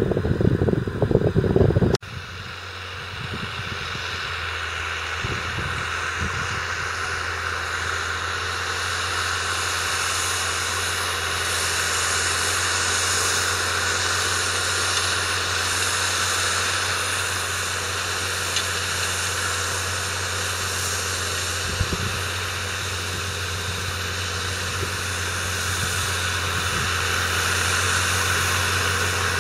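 Valtra T151's 6.6-litre six-cylinder diesel engine running steadily: an even low drone with a broad hiss over it. A louder, rougher rumble fills the first two seconds and cuts off suddenly.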